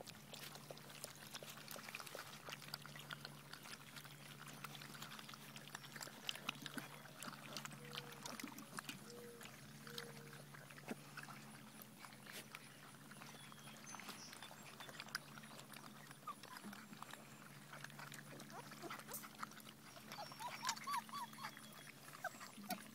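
Five-week-old giant schnauzer puppies eating from metal pans: a dense patter of small wet clicks, smacks and lapping, with a few short high squeaks near the end. A steady low hum runs underneath.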